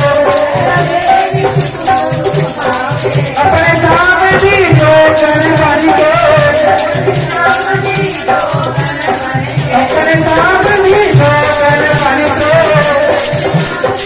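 Loud devotional bhajan: a voice singing a wavering melody over a steady hand-drum beat of about two strokes a second, with constant shaking jingles or rattles above it.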